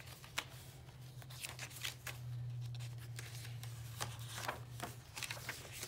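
Paper pages of a handmade junk journal being turned and handled, giving a series of brief rustles and flicks, over a steady low hum.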